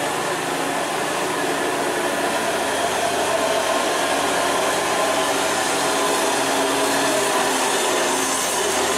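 Diesel engine of a medium Hino truck running steadily under load as it takes the hairpin, slowly growing louder as it comes closer.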